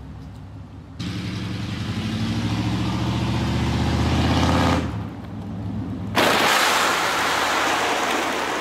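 Chevy OBS pickup truck's engine idling, then revving up with a steadily rising pitch as the truck accelerates, and dropping off briefly. About six seconds in, a sudden loud harsh scraping noise begins: the pink plastic toy car being rammed and ground along the pavement.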